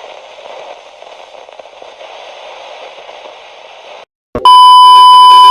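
Broadcast static hissing for about four seconds, then cutting out abruptly. After a click, a loud, distorted steady beep tone sounds for about a second: an interrupted-broadcast effect cutting off the emergency alert.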